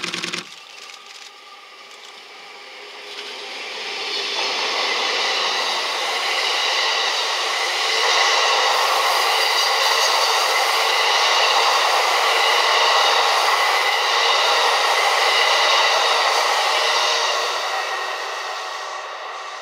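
Wheels of a freight-hauled train of unpowered E233 series passenger cars rolling past on the rails, a steady loud rumble with a ringing tone mixed in. It builds from about four seconds in and fades near the end as the last car goes by.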